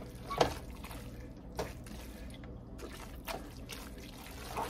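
Wooden spoon stirring and tossing creamy spaghetti carbonara in a skillet as the egg-and-cream sauce thickens on low heat: wet, sticky clicks and slaps every second or so, the loudest just under half a second in, over a low steady hum.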